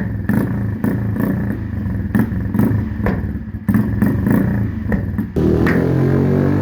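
Honda CG125's single-cylinder engine through an aftermarket SC Project exhaust, revved in blips with sharp pops and crackles from the pipe, then running steadily from about five seconds in.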